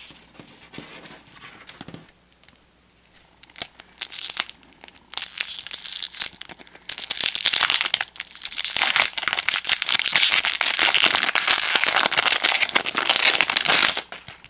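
Wrapper of a baseball card pack being torn open and crinkled by hand, starting about four seconds in and going on as a loud, continuous crackle almost to the end. A few light taps come before it.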